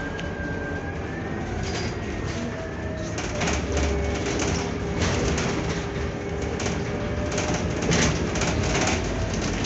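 Cabin ride noise of a Scania Citywide CNG city bus under way: a steady running rumble with a whine that slides up and down in pitch, and frequent rattles and clicks from the body and doors.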